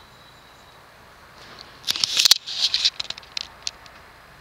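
A burst of rustling and clicking, loudest about two seconds in and tapering off within a couple of seconds, over a faint steady background.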